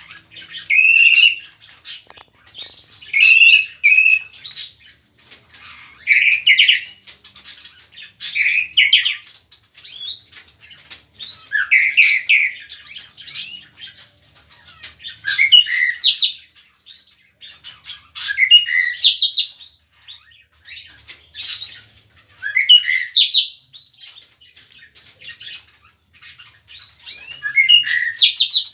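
Tropical mockingbird singing: a long run of loud, varied phrases, each a quick string of repeated whistled notes and rising sweeps, coming every second or two with short pauses between.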